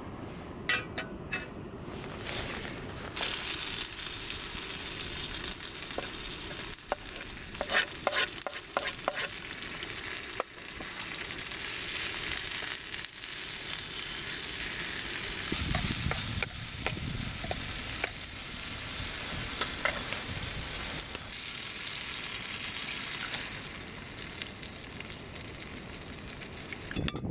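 Food frying and sizzling in a pan over a campfire, the hiss growing stronger about three seconds in, with scattered clicks of a utensil stirring.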